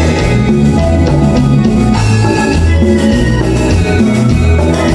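Live band music with a steady Latin dance beat: electric bass and drum kit, with keyboard, electric guitar and hand percussion.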